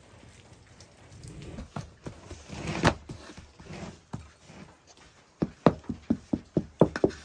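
A thin metal pick tapping through flattened bread dough onto an aluminium baking tray: a quick run of sharp taps, about four to five a second, in the last two seconds. Before it come soft pats and rubbing of fingertips pressing the dough, with one louder knock about three seconds in.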